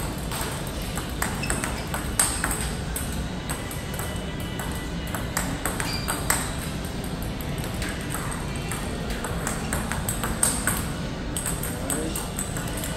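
Table tennis rally: the ball clicking sharply off rubber-faced paddles and bouncing on the table, a quick, uneven run of hits through the whole stretch.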